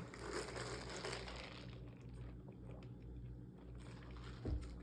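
Faint rustling and crinkling of trading cards and a booster pack wrapper being handled, with a soft low thump about four and a half seconds in.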